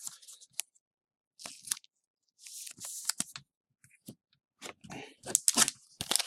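Trading cards and their packaging being handled: several short bursts of rustling and crinkling, louder near the end.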